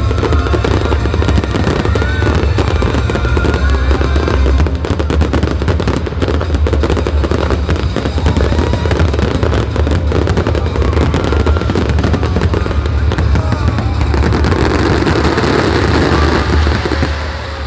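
Aerial fireworks going off in a dense, continuous barrage of crackling and booming shell bursts: the closing stretch of a display. The bursts ease just at the end.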